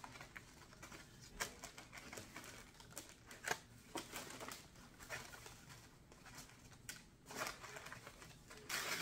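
Tissue paper packing rustling and crinkling as it is handled, in scattered short crackles, with a louder rustle near the end.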